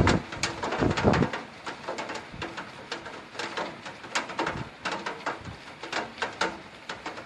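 Heavy rain, with big drops splattering in irregular sharp ticks, and a low rumble of thunder about a second in.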